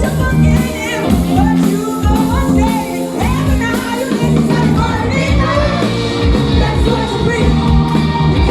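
Live band music with a voice singing over it: steady held bass and chord notes under a sung melody that slides up and down.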